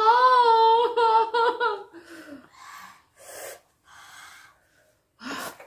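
A woman's drawn-out, wavering vocal cry, then a run of short open-mouthed gasping breaths and a sharp burst of breath near the end: a reaction to the burn of very spicy noodles.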